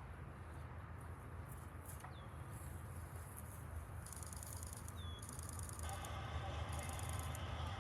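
Faint trackside ambience: a steady low rumble, a few short bird chirps and high buzzing calls. About six seconds in, a higher rushing noise from an approaching train joins in.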